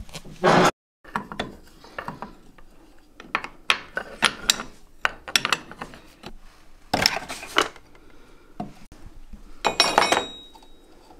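Irregular metal clinks, knocks and scrapes of hand tools on a steel drum-brake shoe clamped in a bench vise, as the handbrake lever is worked off the old shoe with a pry bar and hammer. The heaviest clusters of strikes come about seven and ten seconds in, the second leaving a brief metallic ring.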